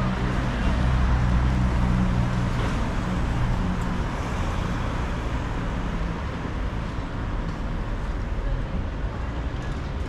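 City street traffic noise with a vehicle engine running close by. Its low hum is strongest over the first few seconds and then fades, leaving the general street noise.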